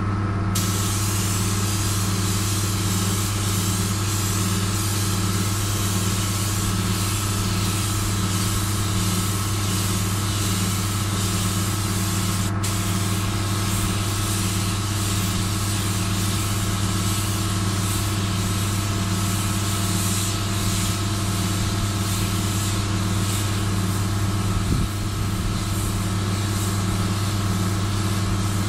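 Air compressor running with a steady, even hum, under a constant hiss of compressed air from a paint spray gun laying colour onto a car bumper.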